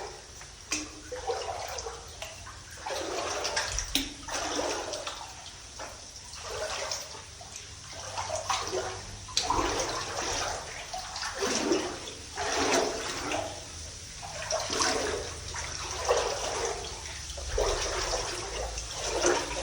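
Boots sloshing and splashing through shallow water and mud in a mine tunnel: irregular wet steps, roughly one a second.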